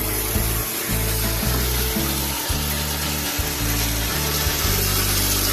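A power saw cutting through rectangular steel tubing, giving a steady high noise, over background music with a changing bass line.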